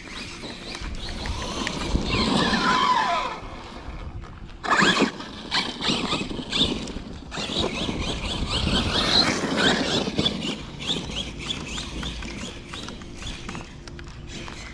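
Arrma Kraton 6S brushless electric RC car driving, its motor whining up and down in pitch again and again as it speeds up and slows, with tyre and drivetrain noise underneath.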